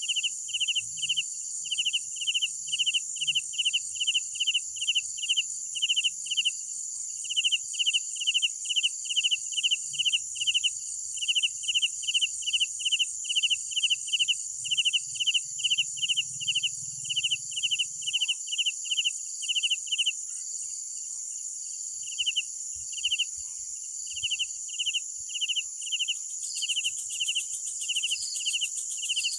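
Crickets at night: a steady high-pitched trill from the chorus, under a nearer cricket chirping about three times a second, which pauses for about two seconds past the middle before starting again.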